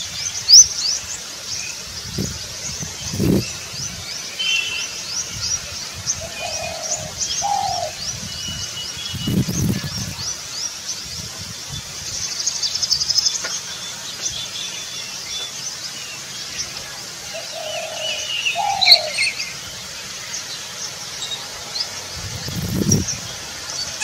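Spotted dove cooing in short low phrases, with paired notes about 7 seconds in and again near 18 seconds. Other small birds chirp quickly and high throughout.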